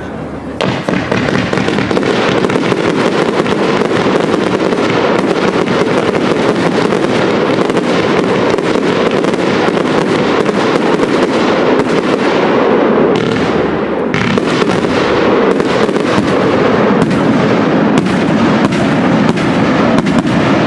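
Large professional fireworks display: a dense, continuous barrage of shell bursts, many sharp reports in quick succession over a steady rumble, starting about half a second in.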